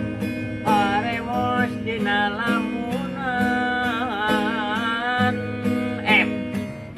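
Instrumental break in a Sundanese song: plucked guitar accompaniment under a wavering lead melody.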